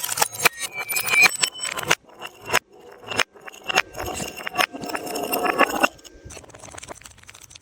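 Objects cracking and crunching as they are crushed: a quick run of sharp cracks and snaps in the first second or so, then a dense crackling crunch for about two seconds in the middle that stops suddenly.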